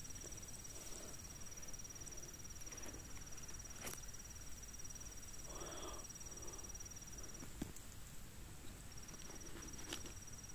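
An insect trilling: one steady, high-pitched buzzing trill that stops about seven seconds in and starts again a second and a half later, with a few faint clicks.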